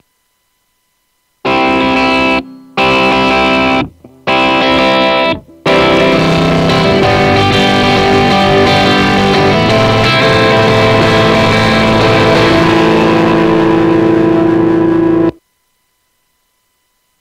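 Distorted electric guitar heard through Steinberg's VST Amp Rack amp simulator, with the Diamond 4x12 cabinet model selected. Three short chords about a second each, then a continuous passage of about nine seconds that ends on a held note and cuts off abruptly.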